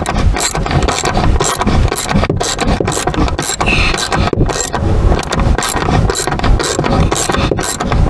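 Ratchet wrench on a long socket extension clicking in quick repeated strokes as it backs out a rear seatbelt anchor bolt from the car's floor pan.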